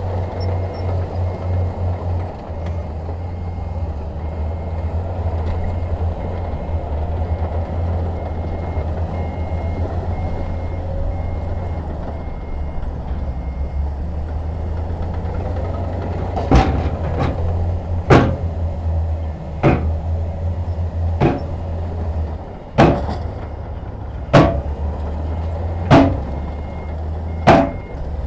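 Heavy diesel earthmoving machine engine running steadily at a low pitch. From a little past halfway, sharp clanks recur about every second and a half, and they are the loudest sounds.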